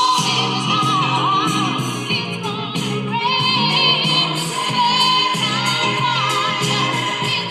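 A recorded gospel song: a singing voice over instruments with a steady beat.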